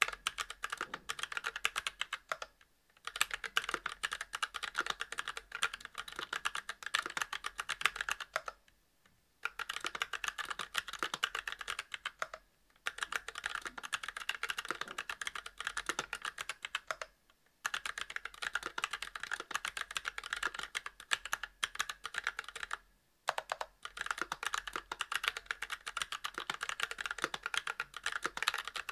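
Fast, continuous typing on a Monstargear Alu XO v2 mechanical keyboard with Kailh Box Brown tactile switches, GMK keycaps and a brass plate: dense runs of keystroke clacks, broken by short pauses every few seconds.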